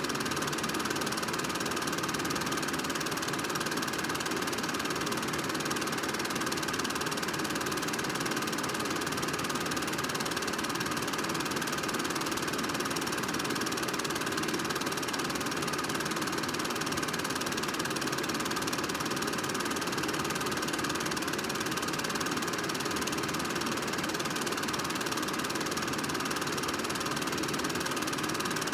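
Movie projector running steadily: an even mechanical whir with a faint steady hum in it, unchanged across the changing shots.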